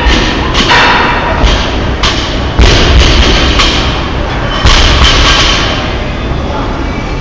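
Loaded barbells with large plates thudding on a rubber gym floor during deadlifts: a series of heavy thuds, the loudest about two and a half seconds in and just before five seconds in.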